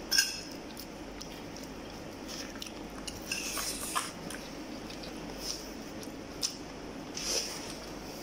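A person eating rice and goat meat by hand, chewing with mouth and lip sounds, with scattered small clicks and scrapes of fingers in the plate; a sharper click comes just after the start.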